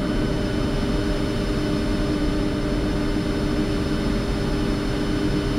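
Steady flight-deck noise of a Boeing 747-400 on the ground with its engines running at idle: an even rumble and hiss with a constant low hum and a faint high whine.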